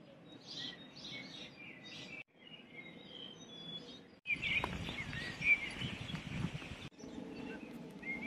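Small birds chirping over faint outdoor background noise. The sound drops out abruptly several times, and the middle stretch is louder and noisier.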